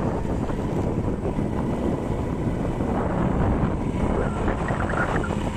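A vehicle's engine running while it drives along a rough dirt track, mixed with wind buffeting the microphone.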